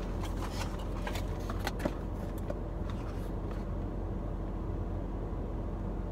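Steady low hum, with scattered light clicks and rustles in the first few seconds.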